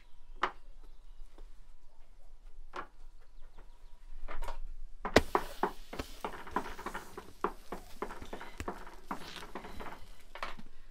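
Hands patting and pressing rounds of soft pastry dough flat against the inner clay wall of a tandoor oven: a run of soft slaps, scattered at first and denser and louder from about halfway through, with one sharper knock just after the midpoint.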